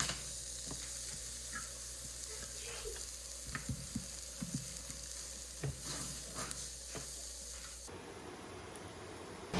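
Food sizzling in a hot pan, with scattered light taps and scrapes of a utensil stirring it. The sizzle grows quieter near the end.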